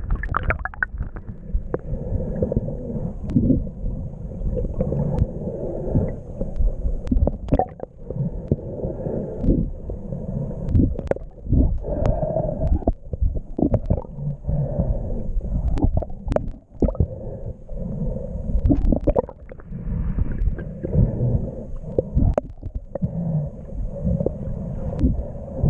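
Muffled underwater sound of a submerged camera: low rumbling and gurgling of moving water, with many scattered sharp clicks and knocks.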